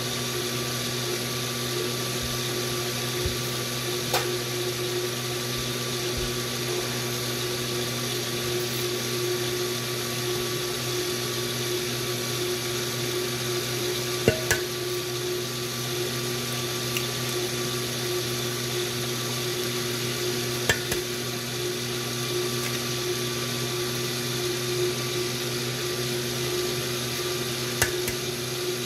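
KitchenAid multicooker stir tower running steadily, its motor humming as the paddle turns the food in the pot. A few sharp clicks stand out, the loudest about halfway through.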